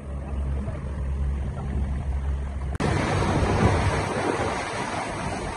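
Boat engine running with a steady low hum. About three seconds in, the sound cuts abruptly to a louder rush of wind on the microphone and water against the hull over the engine, as the boat runs on open water.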